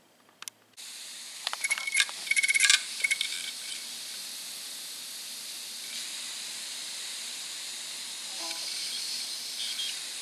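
Open 2.5-inch laptop hard drive running with its cover off: the spinning platters give a steady airy hiss that starts suddenly about a second in. Between about a second and a half and three seconds in, the read/write head gives several quick flurries of sharp clicks.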